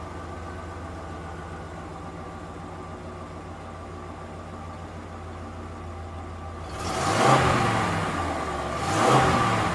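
Pickup truck engine idling steadily, then revved up twice in quick blips, about two seconds apart, in the last few seconds.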